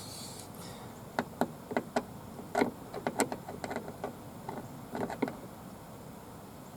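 Scattered sharp clicks and taps of a screwdriver working at a stubborn Torx screw in a car door panel, about a dozen irregular clicks.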